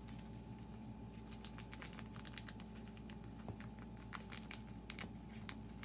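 Small paper packets of grated cheese being torn open and handled: faint, scattered crinkles and light ticks, over a steady low hum.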